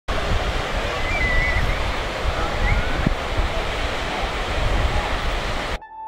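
Wind buffeting the microphone in gusts on an open clifftop, with a few faint high chirps; it cuts off abruptly near the end and soft electronic music begins.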